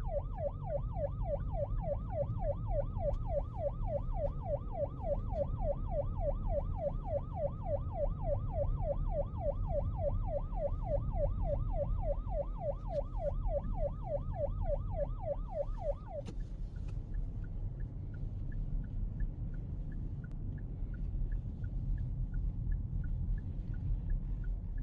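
An emergency vehicle siren sounds a fast yelp, sweeping up and down about three times a second over a steady low rumble, and stops about two-thirds of the way through. A fainter, higher-pitched repeating chirp continues after it.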